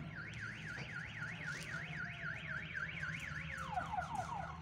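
Electronic alarm siren warbling, its tone sweeping up and down about four times a second, then switching near the end to a quick run of falling sweeps.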